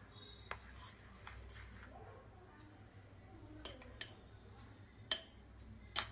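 A spoon stirring thick raw-mango jelly chutney in a glass bowl, clinking against the glass about five times, the loudest two near the end.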